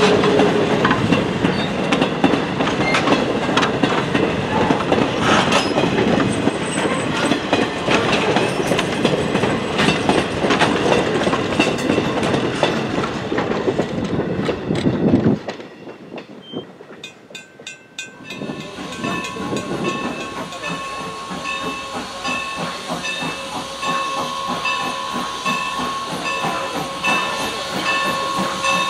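Passenger coaches of a steam train rolling past, wheels clicking over the rail joints. The sound cuts off suddenly about halfway. After a short lull comes the Norfolk and Western 4-8-0 steam locomotive No. 475, hissing steam with a steady high whine.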